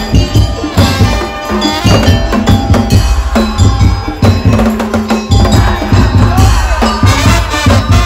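Daul Madura tong-tong music played loudly by a percussion ensemble: dense drumming with a heavy bass beat.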